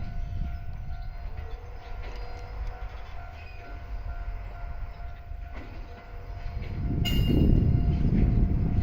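A switcher moving a JR E231 series 800 trainset along the track, with a steady low rumble. About seven seconds in a sudden high-pitched sound cuts in, and the rumble swells louder to the end.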